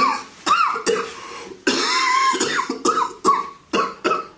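A person ill with a fever coughing hard in a fit: a run of about nine harsh, rasping coughs, with a longer drawn-out hack about two seconds in.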